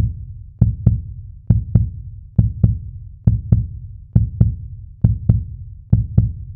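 Music of deep double thumps like a slow heartbeat, each pair repeating a little faster than once a second.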